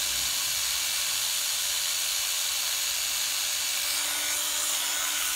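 Makita 9.6 V cordless driver drill running with no load, a steady motor whine with a slight shift in pitch about four seconds in.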